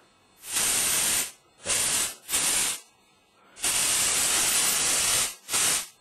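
Aerosol smoke detector tester sprayed at a smoke detector in five hissing bursts: three short ones, a long one of nearly two seconds, then a short one. This is a functional test meant to trip the detector into alarm.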